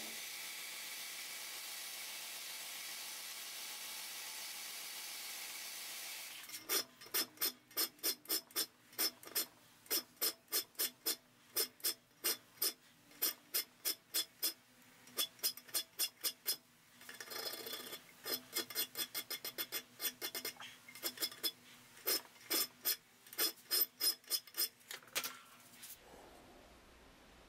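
Brodbeck belt grinder's small wheel grinding the mosaic Damascus steel blade with a steady hiss for about six seconds. Then a hand file rasps across the blade clamped in a bench vise, about two strokes a second, shaping a radius the wheel was too large to cut, until it stops near the end.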